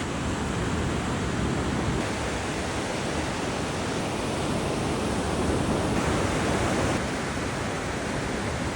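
Steady rushing of ocean surf at the beach, with wind buffeting the microphone.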